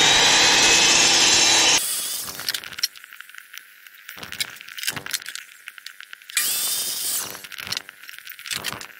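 Electric power saw running and cutting wood, then cutting off suddenly about two seconds in. Scattered knocks and clicks of wood being handled follow, and about six and a half seconds in the saw starts again with a rising whine and runs for about a second.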